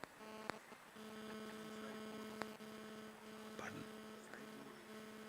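Faint steady electrical hum, a low buzz with even overtones, with two sharp clicks, one about half a second in and one about two and a half seconds in.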